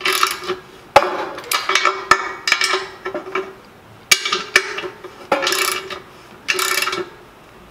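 A 3/4-inch socket ratchet clicking in short bursts on each back-swing, about eight strokes, with a few sharp metal clinks, as a bolt is turned against an open-end wrench and tightened until snug.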